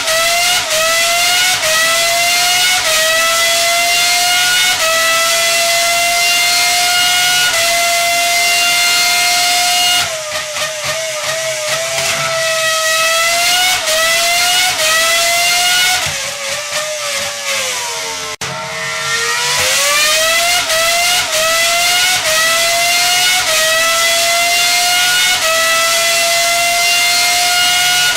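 Car engine accelerating hard through the gears: the pitch climbs and dips briefly at each upshift, every one to two seconds. About ten seconds in the revs fall and waver for several seconds, then about nineteen seconds in it pulls away again through the gears.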